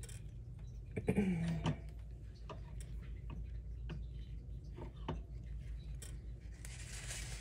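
Scattered light taps and clicks from rocks and paint cups being handled on a work table, over a steady low hum. A brief murmured voice about a second in, and a short hiss near the end.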